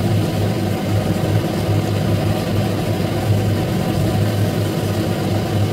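Steady low hum of an electric motor running, with a dense rush of noise over it.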